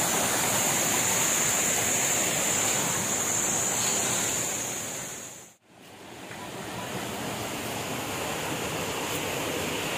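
Steady rushing of flowing stream water. It cuts out sharply about five and a half seconds in, then fades back up.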